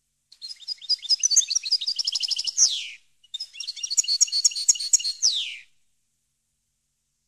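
European goldfinch singing: two rapid twittering song phrases of about two and a half seconds each, with a short break between, each closing on a downward-sliding note.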